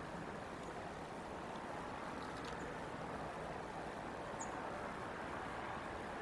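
Steady outdoor background noise, an even low rumble and hiss, with one brief high chirp about four and a half seconds in.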